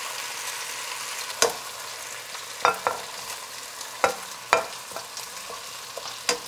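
Oil sizzling steadily under browning chicken pieces, with about six sharp clicks and clinks of tongs knocking against the pot and a glass bowl as the pieces are lifted out.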